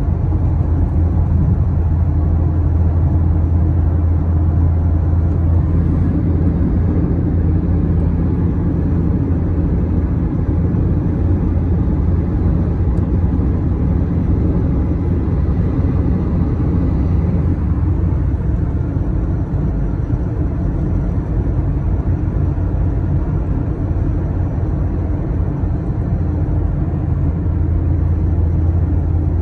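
Car driving at steady highway speed, heard from inside the cabin: a low, even rumble of engine and tyres on the road.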